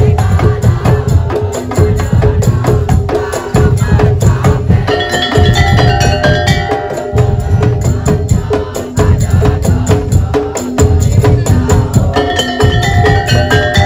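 Daul Madura music: a Madurese percussion ensemble playing dense, fast drumming with a heavy low drum beat and wood-block-like strikes. A higher melody line comes in twice over the drumming.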